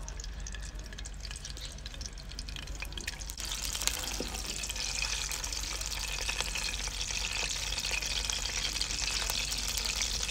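Peeled hard-boiled eggs frying in hot ghee in an aluminium karahi, turned with a wooden ladle. A faint crackle becomes a louder, steady sizzle about three and a half seconds in.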